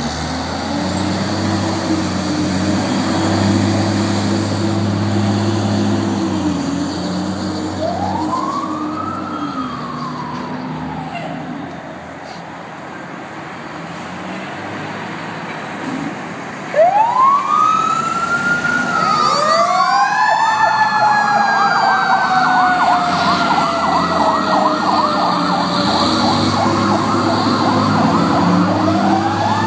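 Fire apparatus leaving the station on an emergency call: heavy truck engines running as they pull out, and electronic sirens wailing up and down. About 17 s in a sudden loud blast comes, then more wails, then a fast-warbling siren tone that slowly falls in pitch. Near the end a fresh wail rises over the engine.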